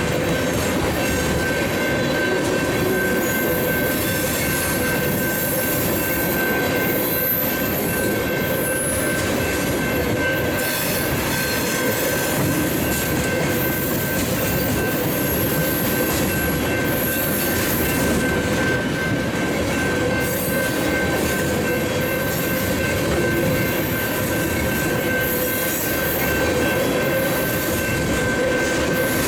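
Tank cars of a freight unit train rolling steadily past, with continuous wheel-on-rail noise and a steady high-pitched tone running over it.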